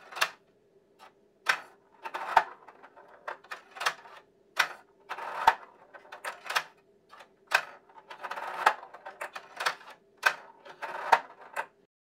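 Plastic balls rolling and clattering down the zigzag plastic ramps of a toddler's ball-drop roller-coaster toy: a string of sharp clacks as the balls drop from ramp to ramp, with short rolling stretches between.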